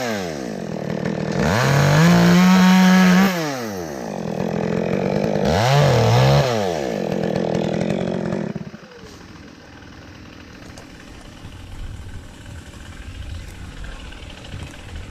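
Chainsaw revved to full speed twice for short cuts through branches, dropping back to idle in between, then shut off about nine seconds in.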